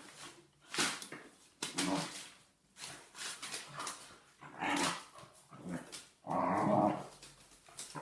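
Dogs growling in play, in short bursts about once a second, with a louder, longer growl about six seconds in.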